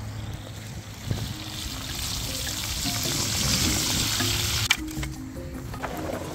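Fish frying in a pan of hot oil: a loud sizzle that builds from about a second and a half in and cuts off sharply near the end, over background music.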